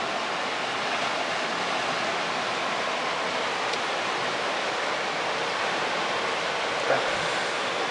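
A brook in full flood, swollen by a tropical storm and near its peak, rushing steadily with a continuous roar of water.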